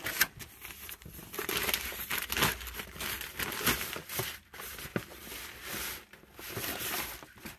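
Packaging crinkling and rustling in irregular bursts as an item is pulled out and unwrapped by hand, with a sharp crackle just after the start.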